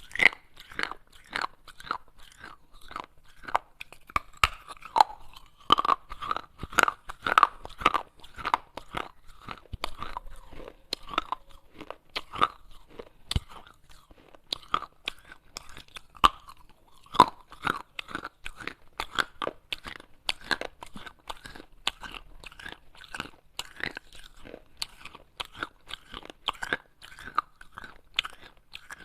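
A person biting and chewing pieces of baked clay pot, with repeated sharp, irregular crunches close to the microphone.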